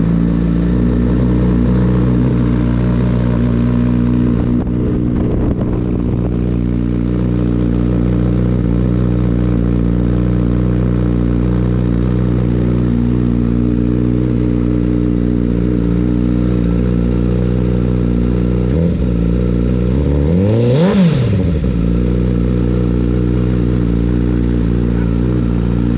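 Honda CBR1000RR SP's inline-four engine idling steadily through a Yoshimura exhaust. It gives a short throttle blip about nineteen seconds in, then a quick rev up and back down about two seconds later.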